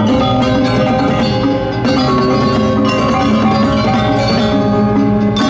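Balinese gong kebyar gamelan playing at full strength: many bronze metallophones ringing in fast, dense patterns over drums and gongs.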